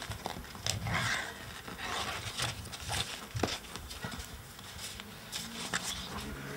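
Sheets of paper and book pages being leafed through and shuffled, with irregular rustles and short scrapes and clicks.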